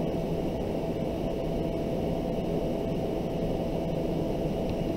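Steady low hum and hiss of background noise, with faint scratches of a pen writing on paper.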